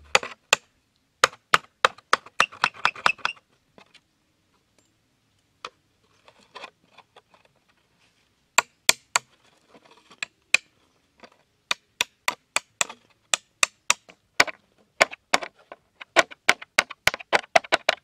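Sharp taps of a metal tool hammering a nail through a plastic bottle, in quick runs of several blows, with a few seconds' pause in the middle.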